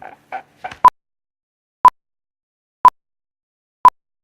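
Four short, loud electronic beeps of one steady pitch, evenly spaced one a second, like a countdown beep, starting a little under a second in.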